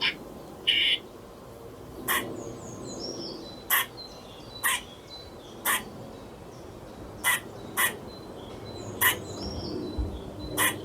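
Squirrel giving a series of short, harsh barking calls, about ten of them at irregular intervals of roughly a second. Small birds chirp faintly in the background.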